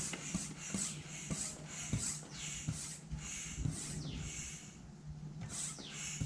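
Hand bicycle pump being worked in quick strokes, each stroke a short hiss of air with a light knock, about two to three strokes a second, inflating a punctured inner tube.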